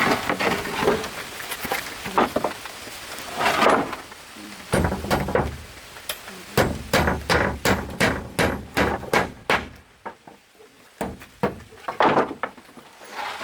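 Repeated knocks and thuds from building work, including a steady run of about ten strikes, about three a second, in the second half.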